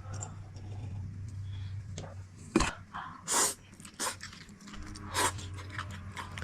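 Drinking and eating mouth sounds: a sip of liquor, short breathy exhales and a sharp click about two and a half seconds in, over a steady low hum.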